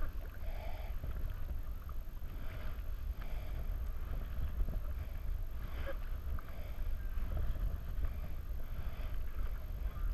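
Kayak paddle blades dipping into lake water in repeated strokes, a short splash every second or two, over a steady low rumble.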